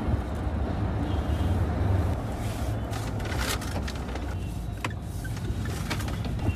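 Mahindra Thar's diesel engine and road noise heard from inside the cabin as the SUV slows in traffic: a steady low drone that eases off a little after about two seconds. A few sharp clicks come partway through.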